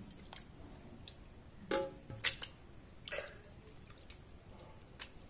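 Cooked tomatoes being scooped from a pressure cooker and dropped into a glass mixer-grinder jar: half a dozen or so light clinks and knocks of the utensil against the cooker and jar, with soft squelches of the pulp, some clinks ringing briefly.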